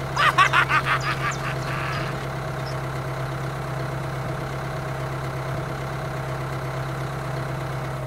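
Steady low engine drone of a toy tractor, with a rapid, quacking-like chatter of about seven pulses a second over it for the first two seconds.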